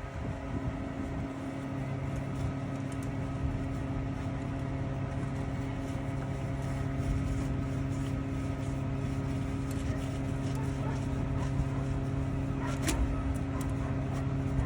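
Vehicle engine idling steadily, a low hum that holds one pitch, with a single sharp click near the end.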